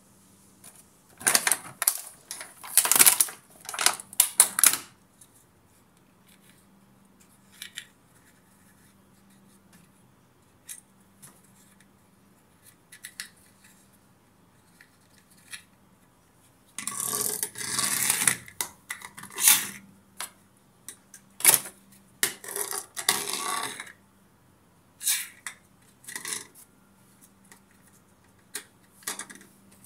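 Crackling and crinkling of a clear plastic blister pack as small plastic toy tanks are worked loose from it, in two spells a little over ten seconds apart. Between them come scattered sharp clicks and taps of hard plastic toys being handled and set down.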